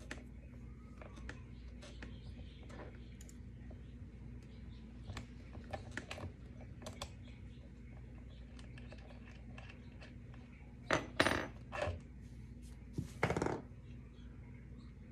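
Small metallic clicks and clinks of a skate tool working the axle nuts while changing quad roller skate wheels, with two short bursts of louder handling noise near the end.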